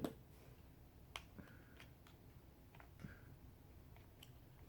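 Small tools from a phone repair kit being handled: a sharp click at the start, then a few faint, scattered clicks and taps.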